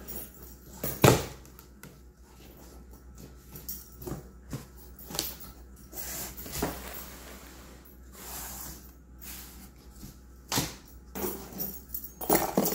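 Large cardboard box being handled as its top flaps are lifted open: scattered knocks, scrapes and rustles of cardboard, with one sharp knock about a second in.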